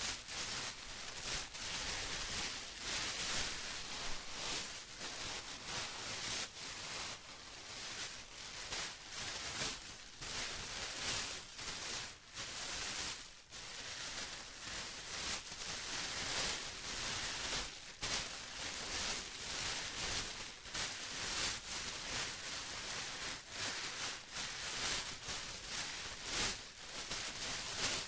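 Plastic being crumpled and rustled by hand, an uneven, continuous crinkling with frequent small crackles and swells.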